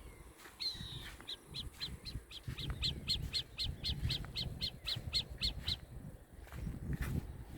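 A bird calling a long series of short, high, evenly repeated notes, about three a second, opened by one longer note and stopping near the end, over a low rumble.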